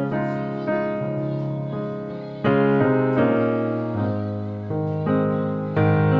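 Background piano music: gentle notes and chords struck every second or so and left to ring and fade.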